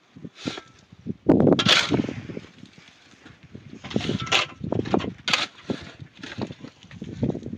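Metal shovel striking and scraping into dry, stony ground and flinging gravelly dirt, in several irregular strokes, the loudest about a second in.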